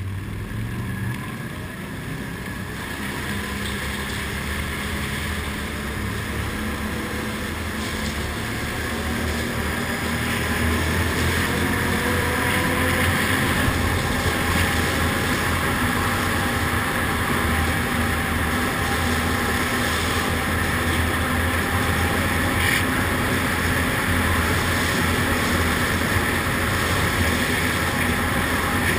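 ATV engine running under way inside a rock tunnel, rising in pitch and growing louder over the first ten seconds or so as the quad picks up speed, then holding a steady drone.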